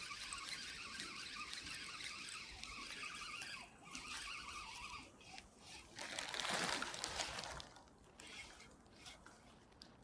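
Steady rain falling. A louder burst of noise comes about six seconds in and lasts about a second and a half, then the sound drops quieter.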